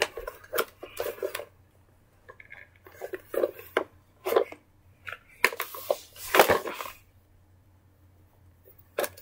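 Plastic toys and plush toys being handled: irregular clattering, knocks and scrapes for about seven seconds, then quiet apart from a single click near the end.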